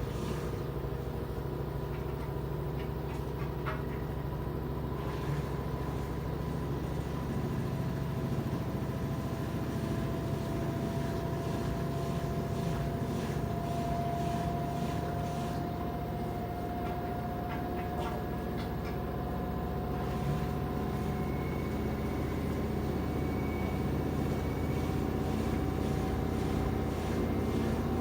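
LG 13 kg front-loading washer-dryer in its spin cycle, the drum speeding up: a steady low hum with a motor whine that climbs slowly in pitch.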